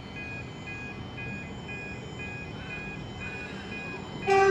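Electronic two-tone beeping repeating about one and a half times a second, then near the end a loud, steady train horn as a train approaches the station.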